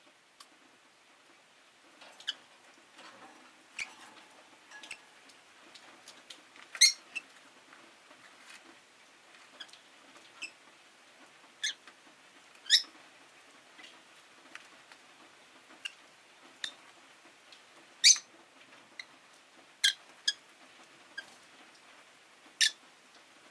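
Rosy-faced lovebirds giving short, sharp, high chirps at irregular intervals, a second or a few seconds apart, some louder than others, over a faint steady low hum.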